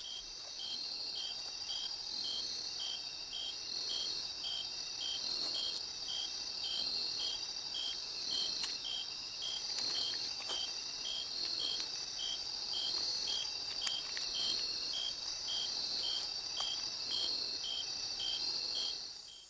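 Rainforest insect chorus: a steady high-pitched shrill with a regular pulsing chirp about twice a second, fading out just before the end.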